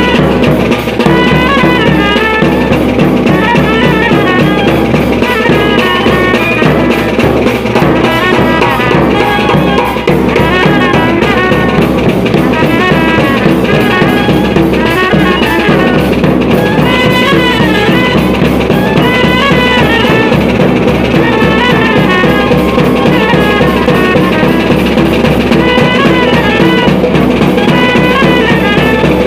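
Loud band music: a repeating melody line over a steady, driving drum beat with a big bass drum.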